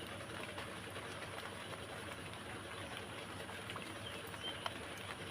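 Steady background noise, with a few faint short chirps and scattered small clicks.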